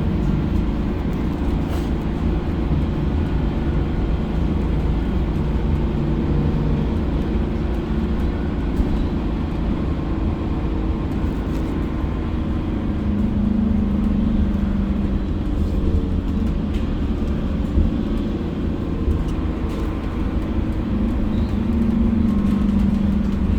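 Mercedes-Benz OC500LE city bus running along the road: a steady engine and road drone, with the engine hum swelling louder twice, about halfway through and again near the end.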